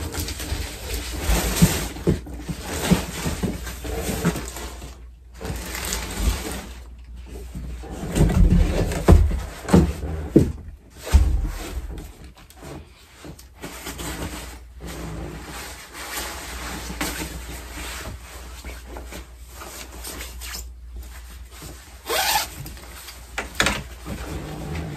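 Clothes rustling as they are handled and sorted on a bed, with irregular thumps and knocks, heavier ones about eight to eleven seconds in. The sound cuts out briefly a few times.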